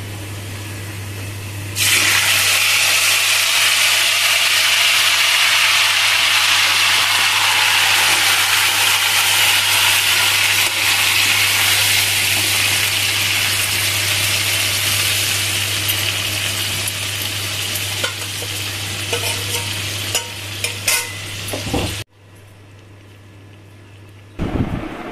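Marinated mutton hitting hot oil in a wok (kadai), starting a loud sizzle about two seconds in. The sizzle keeps going as the meat is stirred with a metal spatula, which scrapes and clicks against the pan, and it cuts off abruptly near the end.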